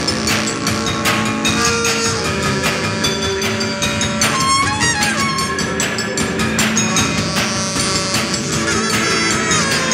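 Live ensemble music on instruments made from decommissioned weapons: a plucked string instrument playing sliding, bending notes over metal tubes and drums struck with sticks in frequent, dense strokes.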